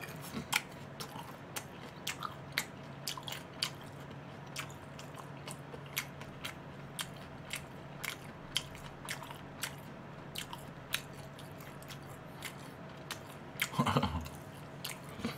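A person chewing a mouthful of crispy fried chicken, with irregular crunchy clicks a few times a second. A short murmur of voice comes near the end.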